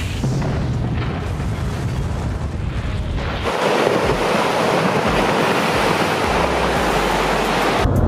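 Rockfall on a mountainside: rock and debris pouring down the face with a continuous rushing rumble, mixed with wind on the microphone. About three and a half seconds in, the sound changes to a louder, hissier rush.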